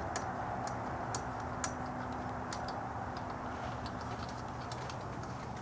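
Scattered light clicks and taps of hand-tool work on a motorcycle's front wheel, irregular rather than rhythmic, over a faint steady hum that stops about four seconds in.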